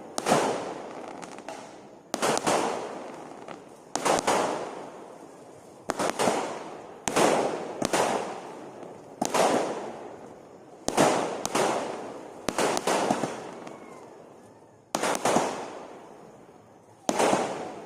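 Fireworks going off in a steady series of loud bangs, roughly one every one and a half to two seconds. Each bang is followed by a rolling echo that fades away.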